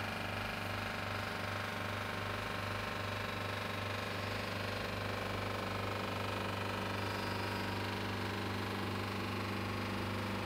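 Liebherr refrigerator running with a steady low hum that holds even throughout.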